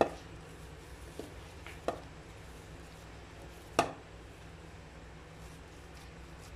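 Butter-cookie dough being pressed together by hand in a bowl, with four short knocks against the bowl, the loudest at the very start and about four seconds in, over a steady low hum.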